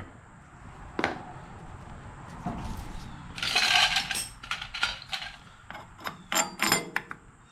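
Air cleaner parts being handled and fitted to a small engine: a sharp click about a second in, a brief scraping rustle in the middle, and a run of light clicks and clinks near the end.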